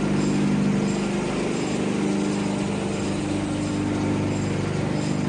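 Machinery of a wood pellet production line running steadily: an even motor-driven drone that holds at one pitch and level throughout.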